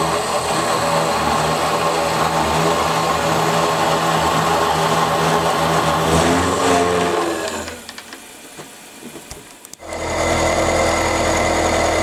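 Small milling machine running steadily while an end mill cuts metal bar stock. About seven seconds in the spindle motor winds down with falling pitch, leaving a quieter gap with a few light clicks. Near the ten-second mark a steady milling-machine run cuts back in abruptly.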